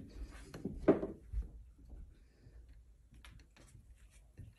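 A few soft thumps and knocks, the loudest about a second in, then scattered light clicks: cats' paws and bodies bumping and stepping on a pool table's rail.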